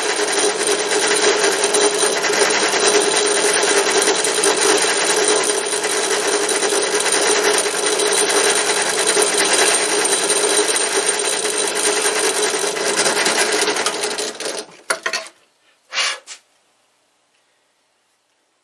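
Benchtop drill press running with a grinding stone in its chuck, fed down onto the muzzle of an air gun barrel to face and crown it: a steady grinding whir that winds down about 14 seconds in, then one short sound about a second later.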